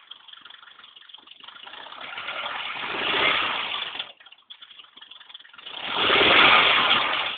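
Car engine running and revved twice: each rev builds over a second or two and then drops back, the first falling off suddenly about four seconds in. This is the engine carrying the weird noise from the timing belt area that began when the belt was struck and broke and is still there with a new belt, which the owner says sounds like something is stuck.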